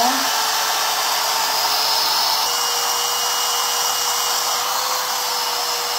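Milwaukee portable band saw running without cutting: a steady motor and blade noise with a steady hum tone that shifts slightly higher about two and a half seconds in.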